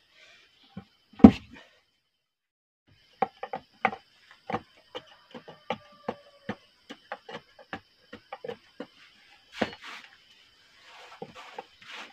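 Wooden post being tamped into its hole: a heavy thump about a second in, then a quick run of knocks and taps as loose soil is packed around its base, another thump near the end, and soil scraping.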